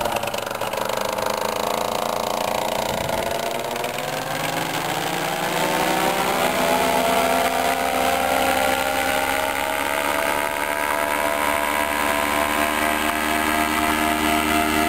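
Paramotor engine and propeller droning as the powered paraglider flies overhead. Its pitch sags for the first couple of seconds, then rises and holds steady from about halfway through.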